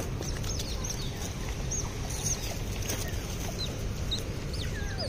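Smooth-coated otters chirping: a steady scatter of short, high-pitched squeaks, many falling in pitch, over a low rumble of city background. There is one sharp click right at the start.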